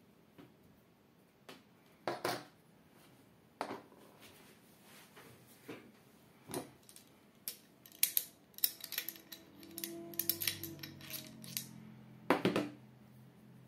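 Steel parts of a Norinco Type 56 rifle clicking and clinking as they are handled and set down on a table during field stripping, with a sharp clack about two seconds in, a quick run of clicks in the second half, and another sharp clack near the end.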